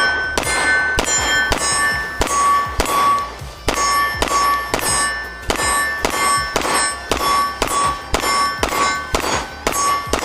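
Rapid string of 9mm pistol shots from a Great Lakes Firearms Synergy DS 9, a 2011-pattern pistol, about two to three shots a second. Each shot is followed by a bright metallic ring, as from hits on a steel target.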